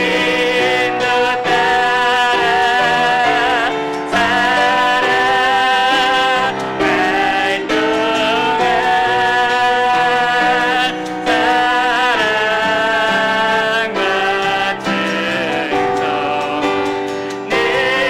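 Church praise team singing a worship song with piano accompaniment; sustained, held notes with vibrato.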